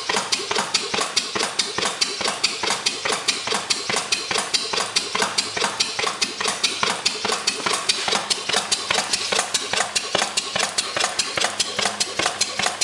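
1883 Crown non-compression, flame-ignition gas pumping engine running steadily, with an even, rapid clatter of clicks, several a second.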